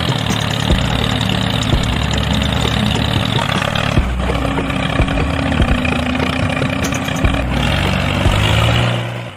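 Steady engine-like running of a mini tractor, with a low hum under a noisy rattle. It shifts slightly about four seconds in and again near the end, then cuts off abruptly.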